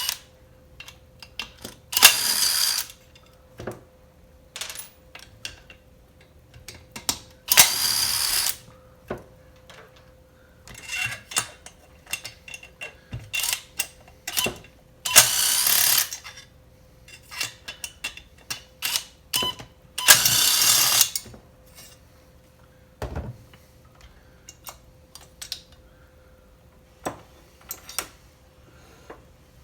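Work on the chainsaw's muffler: four bursts of a power tool, each about a second long, with clicks and clinks of tools and small metal parts between them.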